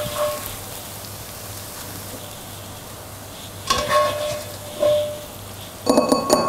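A frying pan of sauerkraut and onion filling sizzles faintly and steadily. Metal clinks against the pan ring out briefly about four seconds in, again about a second later, and loudest, as a quick series, near the end.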